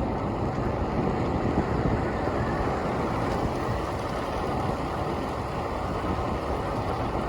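Steady rumbling wind noise on the microphone of a camera carried on a moving bicycle, a dense unbroken roar with no distinct events.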